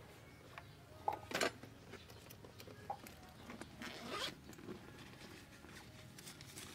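A zipper being pulled, with short sharp rasps about a second in and a longer rasp about four seconds in, among light handling sounds.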